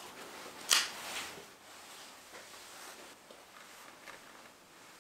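A brief, sharp rustle about a second in, then faint scattered rustling and handling noises.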